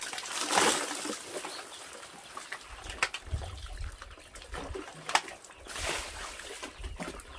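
Water poured from a scoop over a person's head, splashing and dribbling down onto the ground, with another splash about six seconds in. Two sharp knocks come in between.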